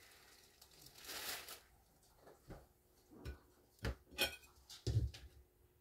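Kitchen handling sounds: a brief rustle about a second in, then a couple of sharp clicks and a dull knock near the end.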